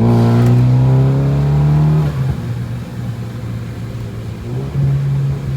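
Tuned BMW G20 330i's turbocharged four-cylinder accelerating hard, its note rising in pitch. About two seconds in the pitch and level drop, as on an upshift, then the engine pulls steadily and picks up again near the end.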